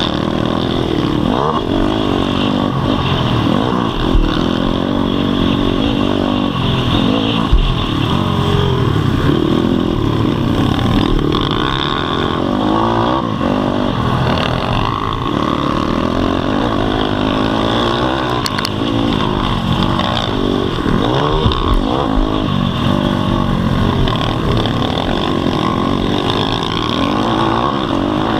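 Single-cylinder four-stroke pit bike engine under the camera at race pace, its pitch rising and falling again and again as the rider works the throttle and gears. A few sharper knocks come through near the start.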